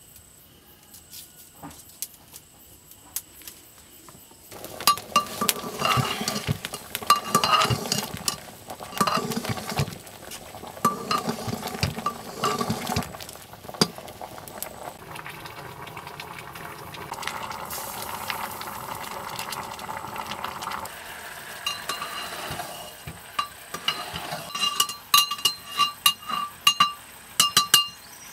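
A metal ladle clinking and scraping against a metal cooking pot as food is stirred, each strike leaving a short metallic ring. The first few seconds are quiet apart from a faint steady high tone, and a quick run of clinks comes near the end.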